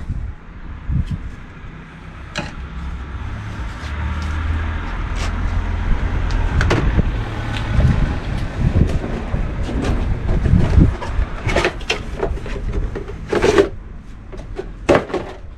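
Plastic air filter housing and its paper filter element being handled: scattered clicks, knocks and scraping, a few sharper knocks near the end, over a low steady rumble.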